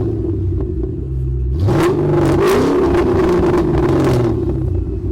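Car engine running, then revving up about a second and a half in and holding a higher, louder note before easing back.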